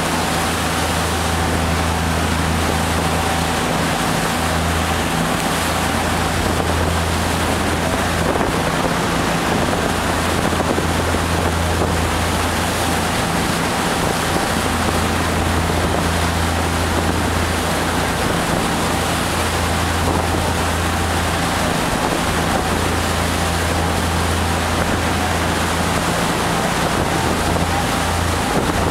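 A tour boat's engine running steadily with a low hum, under wind buffeting the microphone and water rushing along the hull.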